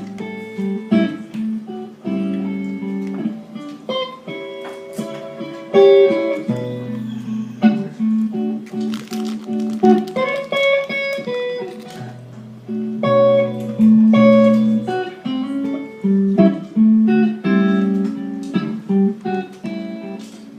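A guitar playing an instrumental intro of picked notes and chords, with no singing.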